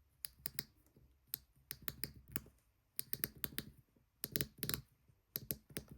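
Ratchet Ring V1 fidget ring's ratchet mechanism clicking as it is turned by a thumb, in short runs of a few quick clicks repeated about six times.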